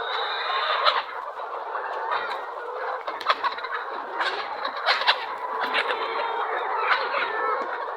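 A large flock of poultry calling all at once: a dense, continuous chatter with many short, sharper calls standing out through it.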